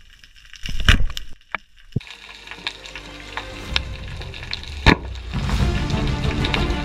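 Speargun fired underwater about a second in, a short loud bang, followed by underwater crackling and scattered sharp clicks. Background music fades in and grows louder in the second half.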